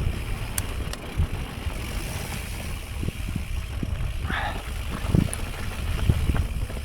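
Mountain bike ridden through deep sand, with a steady low rumble and scattered clicks and knocks from the bike as it goes. A brief higher squeak comes a little past four seconds in.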